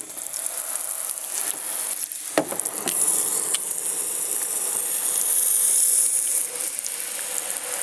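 Garden hose spraying water onto a car's painted body panel and rear window: a steady hissing spray with water pattering on the metal and glass, coming on abruptly.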